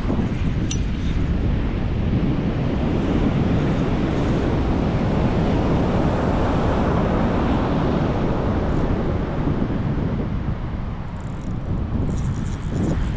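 Strong wind buffeting the microphone, with ocean surf washing on the beach behind it.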